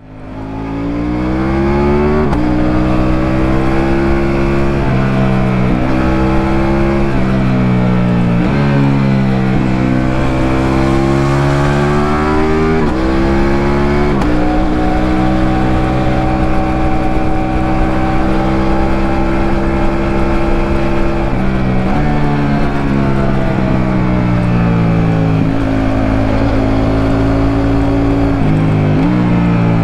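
Ducati Multistrada V4 Rally's V4 engine under way, fading in over the first second or so. Its pitch climbs through the revs and steps down at each gear change, several times over, with stretches of steady cruising between.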